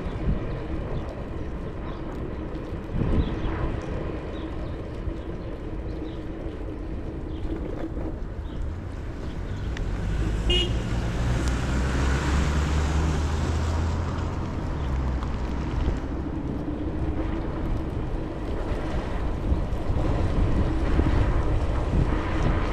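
Ninebot electric scooter riding along, its motor giving a steady whine over wind rumble on the action camera's microphone. About ten seconds in, a louder low engine hum swells for a few seconds and fades, as of a passing vehicle.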